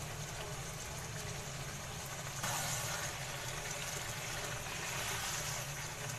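Potato, meat and capsicum curry sizzling in a hot pan as it is stirred and fried down; the sizzle grows louder about two and a half seconds in. A steady low hum runs underneath.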